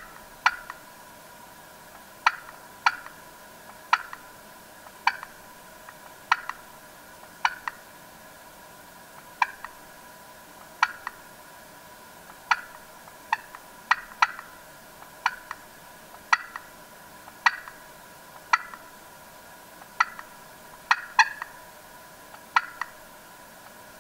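Turkey calling: a long series of short, sharp notes about once a second, some coming in quick pairs.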